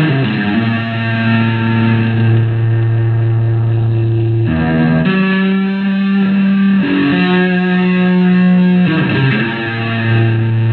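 Electric guitar played through distortion, starting abruptly with a quick falling run of notes into a long held low note. It goes on as a slow melody of sustained notes, each held for a few seconds, joined by short runs of notes.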